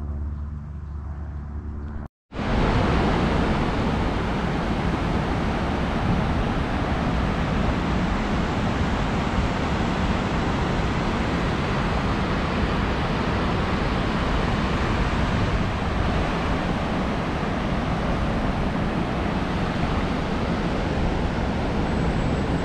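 Steady, even rush of river water pouring over a low dam, starting abruptly after a brief cut about two seconds in; before it, a quieter low hum.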